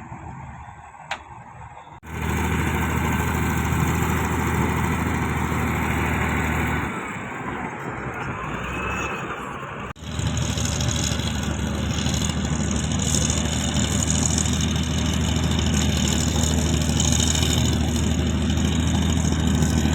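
Diesel engine of heavy earthmoving machinery running steadily. The sound changes suddenly about two seconds in and again about ten seconds in.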